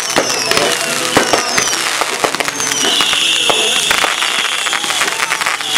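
Aerial fireworks going off in quick succession: a dense run of sharp bangs and crackles, with short falling whistles. About three seconds in, a high steady whistle holds for about a second.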